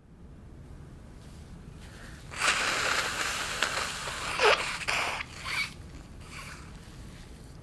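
A man's loud snore through congested sinuses: one long, noisy nasal breath of about three seconds ending in a high squeak that drops in pitch, then two short snuffles.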